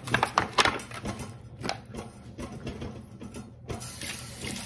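Aluminium foil pan crinkling and clicking as a raw whole chicken is handled in it, with a few sharp crackles in the first two seconds and quieter rustling after.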